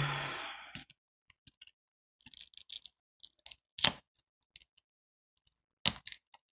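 Irregular light clicks and taps of small tools and iPad parts being handled on a table during a DIY iPad teardown, with one sharper tap near the middle.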